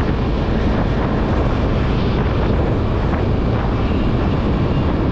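Steady wind rushing over the microphone of a moving Honda scooter, with the scooter's engine and road noise running underneath at an even level.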